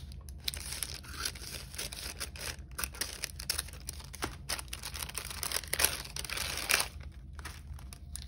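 Paper bag crinkling and rustling as it is handled and cut open with scissors, with short sharp rustles and snips throughout, busiest a little past the middle.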